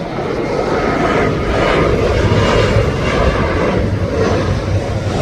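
Airplane passing, a loud steady rumble with a faint whine above it that swells toward the middle and then eases slightly.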